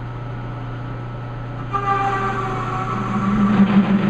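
Metal lathe running with a steady hum while a threading tool cuts a decorative groove into a knurled workpiece. About two seconds in, the cut adds a pitched singing tone that grows louder near the end.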